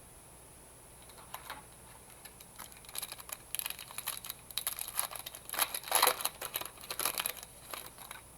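Trading cards being handled and shuffled, with a run of crinkling, rustling and small clicks starting about three seconds in.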